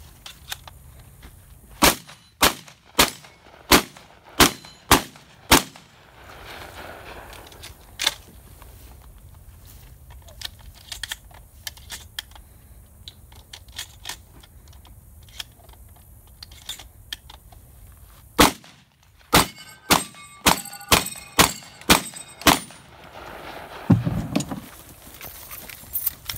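Shotgun fired in a quick string of seven shots about half a second apart, then one more shot. After a pause with faint clicks, a faster run of about nine shots follows, with steel targets ringing after the hits.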